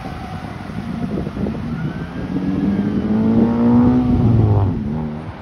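A road vehicle's engine accelerating over street traffic noise, its pitch rising for a couple of seconds and then dropping sharply near the end.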